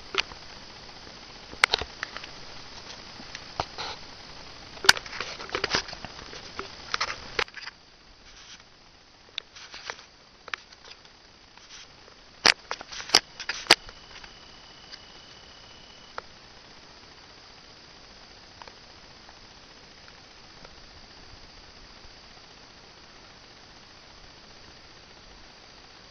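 Scattered sharp clicks and snaps through the first half, the loudest clustered about five seconds in and again around twelve to fourteen seconds, then only a low steady hiss.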